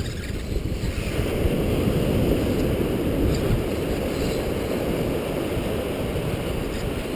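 Wind buffeting the microphone over the wash of ocean surf on a beach, a steady rushing noise that grows stronger about a second in.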